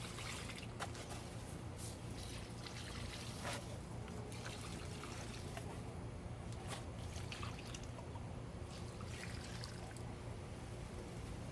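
Water trickling and pouring steadily as garden plants are watered by hand.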